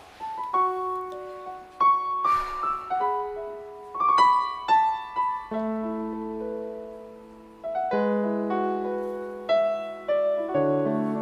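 Piano music: a slow melody of single ringing notes, moving into fuller held chords about halfway through.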